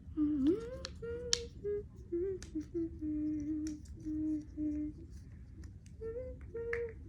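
A young girl humming a wandering tune in held notes that slide up and down, with a few light clicks in between.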